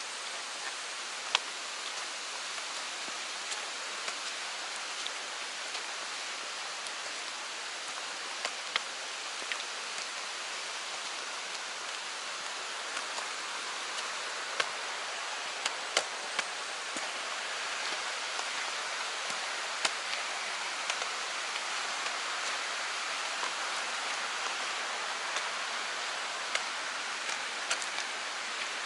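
Mountain stream flowing: a steady rush of water that swells slightly about halfway through, with scattered sharp taps.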